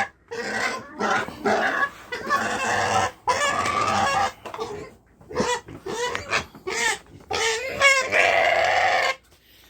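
A mini pig squealing and grunting in a run of short calls, some sliding in pitch, then one longer squeal about eight seconds in: an unhappy pig protesting.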